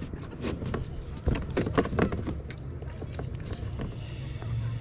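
A run of irregular sharp clicks and rattles from hands working the outboard's fuel hose connector and primer bulb at a plastic portable fuel tank, with a steady low hum under it.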